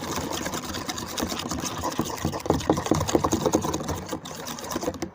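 A runny homemade slime mixture being stirred fast in a container: rapid wet clicking and squelching strokes, many to the second, that stop suddenly near the end.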